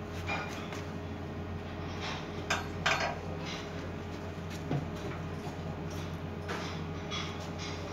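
Large V-belt pulley of a SALVA planetary mixer's belt drive being turned by gloved hands: a few short scrapes and light metallic clatters, the loudest about three seconds in, over a steady low hum.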